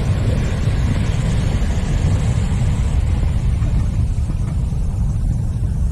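Wind buffeting the action camera's microphone over the wash of surf on the shore: a steady low rumble.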